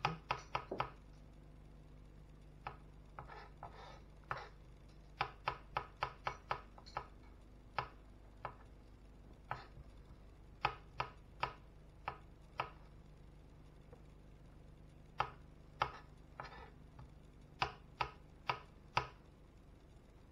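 Kitchen knife slicing button mushrooms on a plastic chopping board: sharp knocks of the blade against the board, in quick runs of several strokes separated by short pauses.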